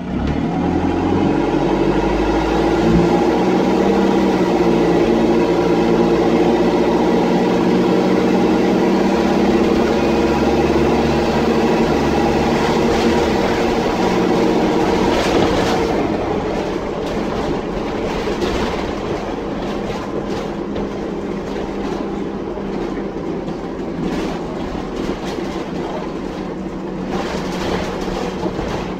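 Dennis Dart SLF bus's diesel engine pulling hard under acceleration, loud and blaring through a blown exhaust, heard from inside the saloon. About halfway through it eases off and runs quieter.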